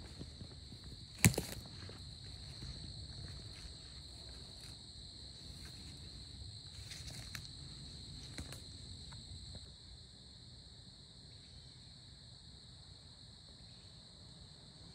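Steady high-pitched chorus of night insects such as crickets, with footsteps and rustling through the woods and one sharp knock about a second in. The insect trill cuts off suddenly near ten seconds, leaving a quiet outdoor hush.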